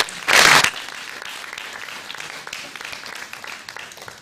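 Audience applauding. The clapping is loud at first, then turns into a thinner patter that slowly fades out.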